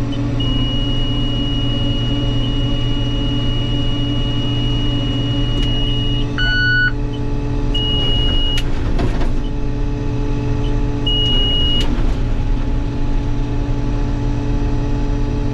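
Combine engine running steadily, heard from inside the cab, while the header is being cleared of a plug. Over it, a cab warning alarm sounds: one long steady high tone for about six seconds, a short chime, then two shorter beeps.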